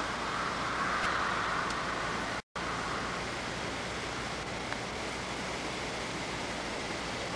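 Steady rushing noise without any tone or rhythm, cut by a sudden total dropout for a split second about two and a half seconds in.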